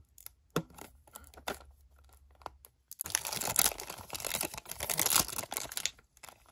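Cellophane shrink wrap being torn and peeled off a plastic cassette case. A few scattered clicks come first, then from about three seconds in the film crinkles and tears loudly for about three seconds.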